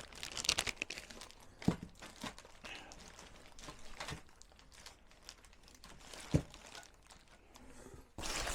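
Packing paper being crumpled and rustled while parts are pulled from a shipping box, with two sharp knocks, one about a second and a half in and one about six seconds in.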